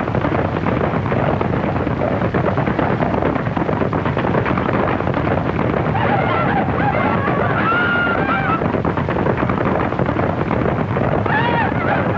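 Rapid crackling gunfire with men yelling now and then, on a worn early sound-film track with heavy noise. The yells come about halfway through and again near the end.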